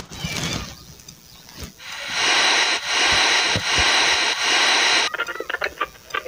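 Portable transistor radio giving loud, even static hiss while it is being tuned between stations, starting about two seconds in and cutting off suddenly about five seconds in, followed by short crackles and blips as the dial turns.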